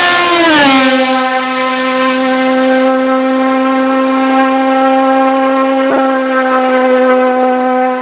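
Osella PA2000's 2-litre four-cylinder Honda racing engine at high revs as the car passes: its note drops sharply in pitch as it goes by, then holds a steady high pitch as it pulls away.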